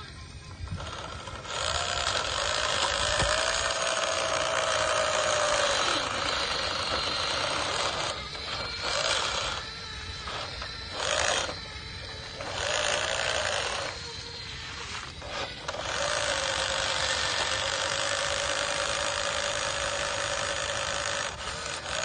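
Toy RC excavator and RC dump truck's small electric motors and gearboxes whirring under load as they pull against each other on a chain, starting and stopping in spurts several times near the middle, then running steadily.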